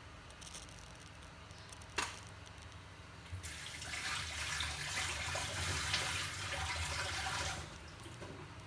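Water running for about four seconds, starting and stopping abruptly, after a single sharp click about two seconds in.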